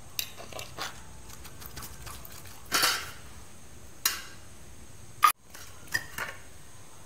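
Steel kitchenware clinking and scraping: a metal spoon knocking against steel idli moulds and a steel plate as steamed idlis are lifted out. About seven separate clinks and scrapes, the longest and loudest about three seconds in.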